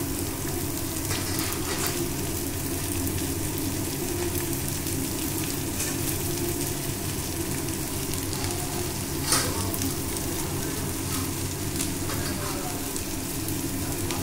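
Freshly added chopped vegetables (cabbage, green beans, carrot, tomato and green chilli) sizzling steadily in hot oil in a metal kadai, stirred with a flat metal spatula that scrapes the pan. One louder scrape comes about two-thirds of the way through.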